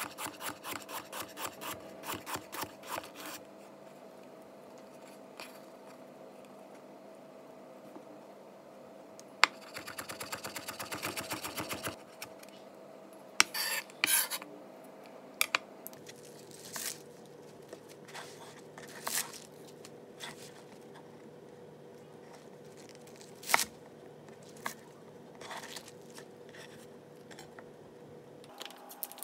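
Chef's knife cutting carrot on a cutting board: a quick, even run of strokes, about five a second, at the start, a fast burst of chopping a little before halfway, then scattered single knocks of the blade on the board.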